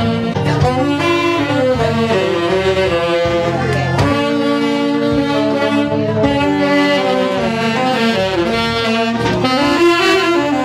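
Three saxophones playing a tune together, several notes sounding at once and held for a half second to a second or so before moving on.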